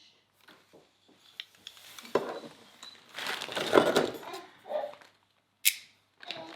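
Metal locks and keys being handled and set down on a table, with clinks and knocks and a stretch of rustling and clatter in the middle. There is a sharp click near the end.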